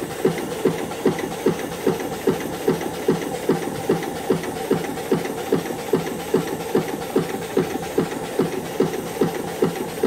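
Antique steam engine running steadily, its exhaust chuffing in an even rhythm of about three beats a second.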